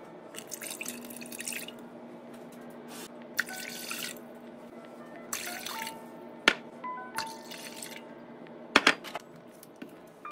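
Liquid poured from a glass measuring cup into a metal pot, splashing in several short pours, with a couple of sharp knocks, over background music.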